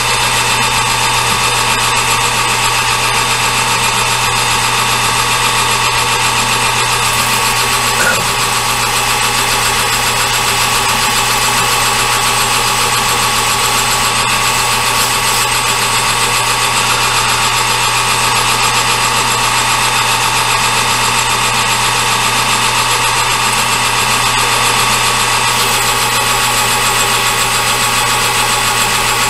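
Metal lathe running steadily while taking a turning cut on a thin-walled part: a constant motor and drive hum with several steady tones.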